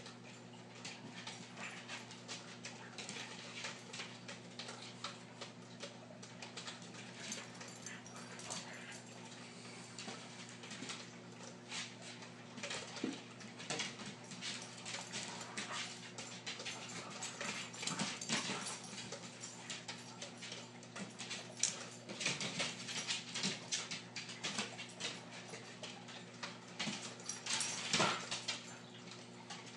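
A dog whimpering on and off with small fidgeting noises, loudest about halfway through and near the end, over a steady low hum.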